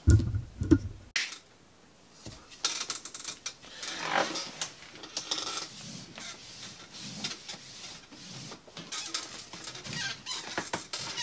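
Hands working and pounding a lacrosse head's mesh pocket to shape it: a few low thumps in the first second, then an irregular run of short scrapes and clicks from the mesh and strings.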